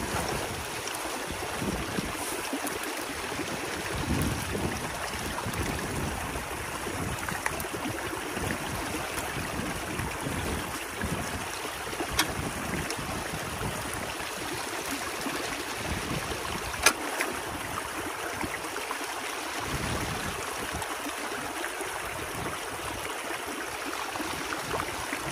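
Water rushing and gurgling through a breach in a beaver dam, steady throughout, with uneven low rumbles of wind on the microphone. Two sharp clicks stand out, the louder one about two-thirds of the way through.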